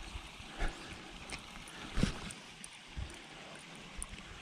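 Steady hiss of flowing stream water, with three short, soft thumps, the loudest about two seconds in.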